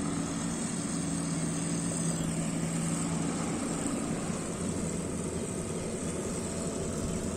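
An engine running steadily with a low hum. The hum fades about halfway through, leaving a steady mechanical noise.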